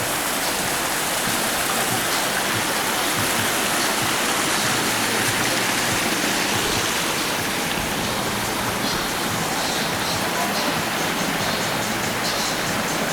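Steady rush of water from a waterfall, an even noise with no breaks.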